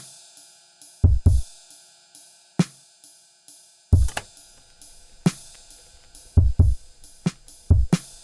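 Background music: an electronic drum beat with kick drum hits and a steady hi-hat ticking about twice a second.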